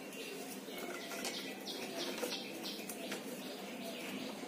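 Small birds chirping in a quick repeated series, about three chirps a second, with a couple of light knocks.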